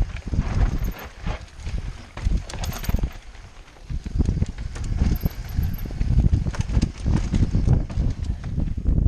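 Mountain bike rattling and knocking as it rides down a rough dirt trail: tyres, chain and frame clattering over bumps and roots in an irregular run of thuds and clicks, easing off briefly partway through.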